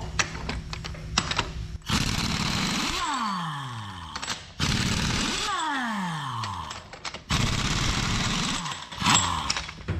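A 1-inch-drive pneumatic impact wrench hammers on the track bolts of a Caterpillar D10R dozer in three bursts, loosening them. Each burst ends in a falling whine as the air motor spins down.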